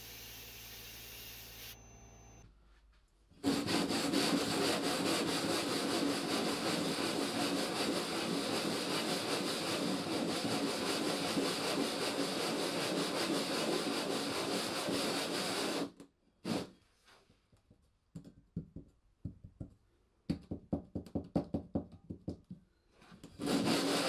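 Cast-iron coffee grinder part rubbed back and forth on sandpaper laid flat, a steady gritty scraping as its base is ground level. The rubbing breaks off for a few seconds partway through, goes on as a run of short separate strokes, and turns steady again near the end. It opens with a brief steady hiss from the sandblasting cabinet before a short silence.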